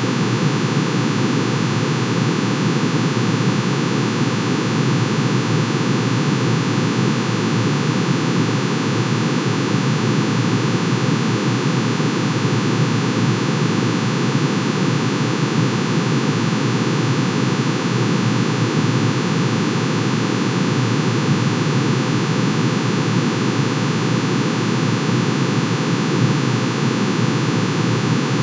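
Sonified atomic emission spectrum of manganese: many sine waves, one for each spectral line, summed into a steady, unchanging drone. It is thick and noise-like in the low range, with many fixed high tones above it.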